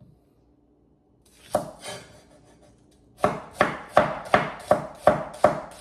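Meat cleaver chopping garlic and shallots on a wooden cutting board, mincing them. A couple of strokes come about a second and a half in, then steady even chops about three a second from about three seconds in.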